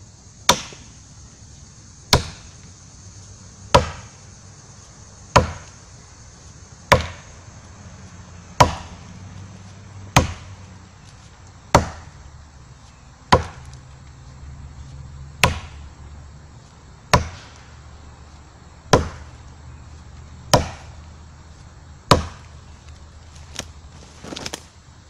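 CRKT Woods Chogan tomahawk on a long curved cane handle chopping into a small standing dead, well-cured maple trunk: about fifteen sharp chops at a steady pace, one every second and a half or so, the last few quicker and lighter.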